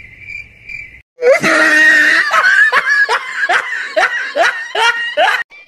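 Cricket chirps in steady, evenly spaced pulses for about a second, then cut off. Loud laughter follows, a string of about ten 'ha's, each falling in pitch, two or three a second.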